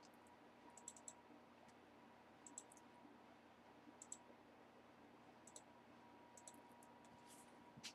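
Near silence with faint, light clicks every second or so, some in quick pairs or clusters, over a low steady hum.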